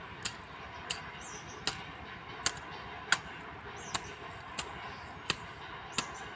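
Hand hoe chopping into soft, rain-wet soil while weeding: about nine sharp strikes at an even pace, one every two-thirds of a second or so.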